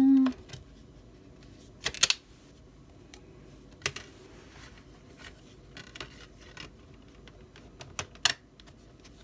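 Scattered sharp clicks and taps of a CD album digipack being handled: plastic disc trays and card knocking. The loudest clicks come about two seconds in and near the end.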